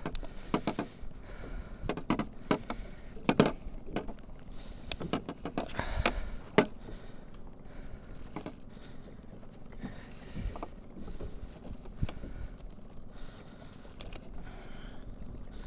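Scattered clicks, knocks and light metallic rattles at irregular moments, the loudest about three and a half and six seconds in: a small fish and its jigging tackle being handled on a kayak.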